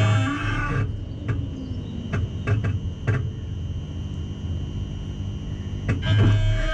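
Background music cuts off about a second in, leaving a Siemens Desiro classic EMU heard close at its wheel: a steady high-pitched electric whine over a low hum, with a few sharp clicks. The music comes back near the end.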